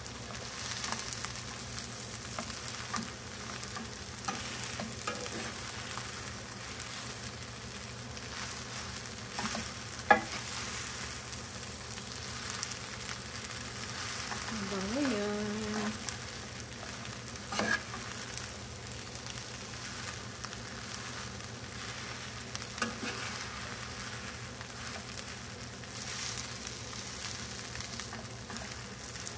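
Fried rice sizzling in a hot pan as it is stirred and scraped with a wooden spatula and a metal spoon, the utensils clicking against the pan. One sharp knock stands out about ten seconds in.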